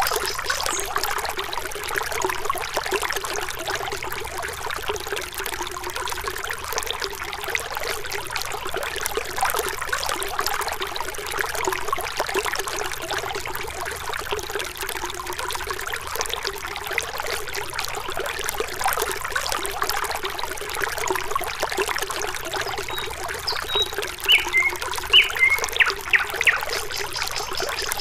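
Small waterfall splashing steadily, with a few short chirps near the end.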